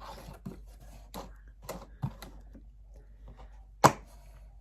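Irregular clicks and taps of small items being handled and set down, with one sharper knock near the end.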